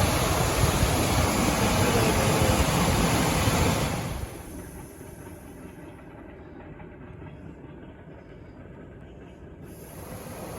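Volkswagen Golf 7 heater blower fan, running outside its housing, with a loud even rush of air and motor noise. About four seconds in the noise drops sharply to a much quieter run, and it starts to build again near the end.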